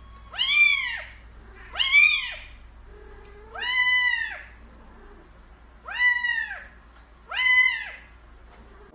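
Kitten meowing five times, each meow high-pitched and rising then falling, with short pauses between them.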